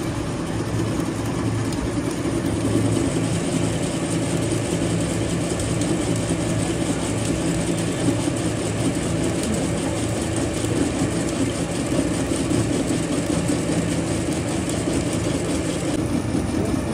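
An engine or motor running steadily at an even pitch, with one short sharp tick about halfway through.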